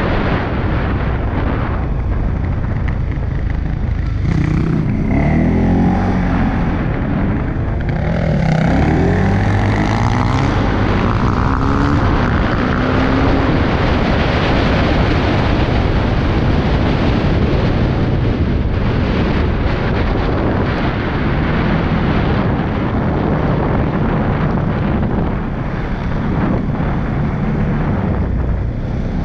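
CFMOTO CFORCE 625S ATV's single-cylinder engine running at speed under way, with wind noise over the microphone. Between about 4 and 12 seconds in, engine pitch rises and falls several times.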